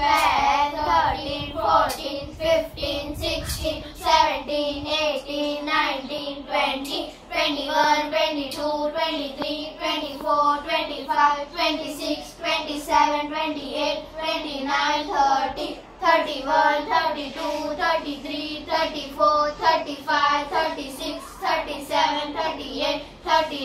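A group of children chanting in unison in a rhythmic sing-song, counting numbers aloud while they count on their fingers.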